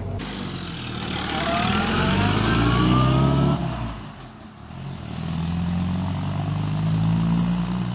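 1943 Willys MB Jeep's Go Devil four-cylinder side-valve engine pulling under acceleration, its note rising for a couple of seconds. About four seconds in it drops away briefly, then it settles into a steady run.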